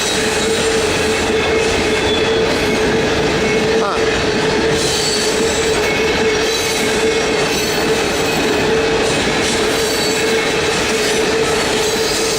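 Loaded Norfolk Southern coal train rolling past close by: a steady rumble of steel wheels on rail with a continuous, steady wheel squeal.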